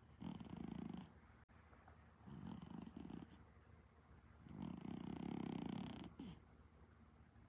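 Exotic Shorthair cat snoring: three faint, rattling snores a couple of seconds apart, the third one longer.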